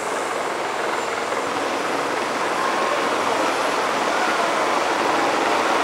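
Helicopter running on the ground, a steady loud rushing of turbine engines and rotor that builds slightly, with a faint high turbine whine.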